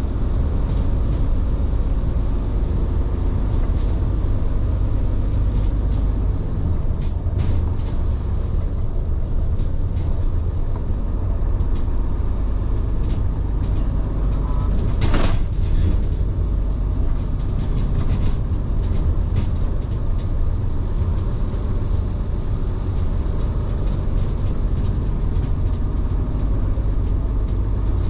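Steady low rumble of a large truck running at highway speed, heard from inside the cab, with a brief sharp sound about halfway through.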